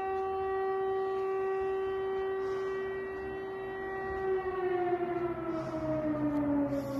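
Civil defence air raid siren sounding a steady wailing tone, its pitch starting to fall about four seconds in. It is an air raid alert.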